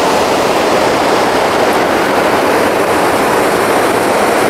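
Steady rush of a fast river running over rocks and rapids.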